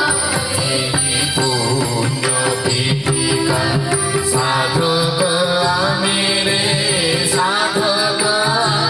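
A group of children singing a song together into microphones, amplified over a loudspeaker, with steady held musical accompaniment underneath.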